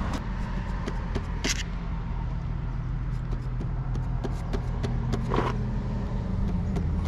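A vehicle engine idling steadily, with scattered light clicks and ticks and two brief higher-pitched sounds over it.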